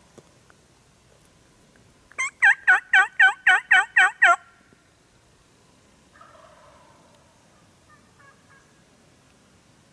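Wild turkey call notes: one loud run of about ten evenly spaced yelps lasting about two seconds, after which only faint sounds follow.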